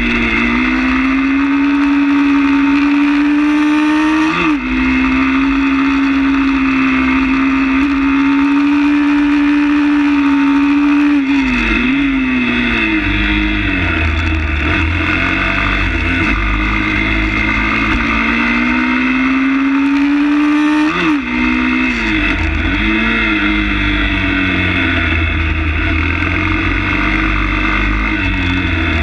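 160 cc pit bike's single-cylinder four-stroke engine running hard, heard from on board. The revs hold high, then drop sharply three times, about four seconds in, around twelve seconds and around twenty-one seconds, and climb again after each drop.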